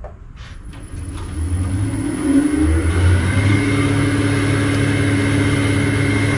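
Delta 14-inch band saw switched on at its VFD control, a few clicks and then the motor and blade spinning up, rising in pitch over about two seconds and then running steadily with a thin high whine.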